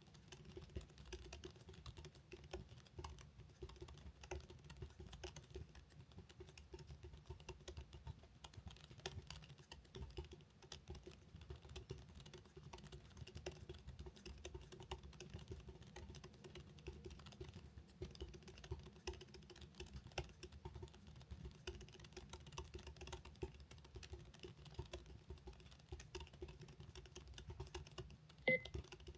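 Very fast continuous touch-typing on a computer keyboard: a dense, irregular patter of keystrokes, with a short high beep near the end.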